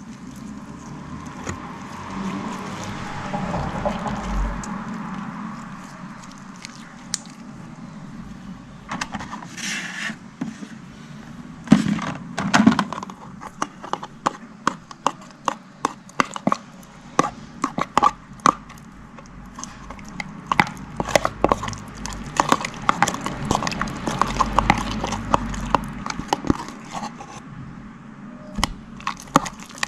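Coloured slime being worked by hand: a soft, wet squishing at first, then many quick, uneven sticky clicks and pops from about nine seconds in.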